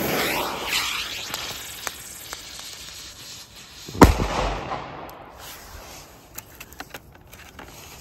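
Lesli Cuby Blizzard cube firecracker: its lit fuse hisses as it sprays sparks, fading over a few seconds, then it goes off with one sharp bang about four seconds in.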